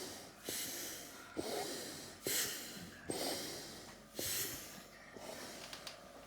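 A child's fast, harsh, noisy breathing with stridor, about one sharp breath a second, heard through a mask. This is the labored breathing of an obstructed airway.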